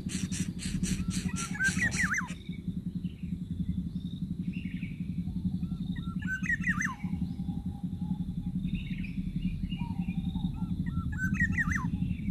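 A bird sings the same short phrase of rising and falling whistled notes three times, about every five seconds, over a steady low rumble. A rapid pulsing buzz stops about two seconds in.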